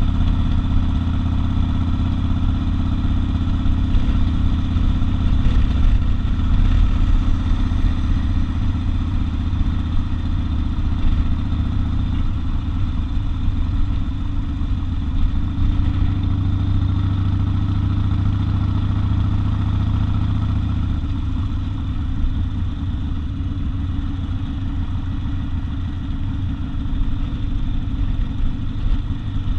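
Harley-Davidson XL 1200 Custom's air-cooled V-twin running while cruising: a steady, low engine note that changes pitch and level a few times, a little quieter in the last third.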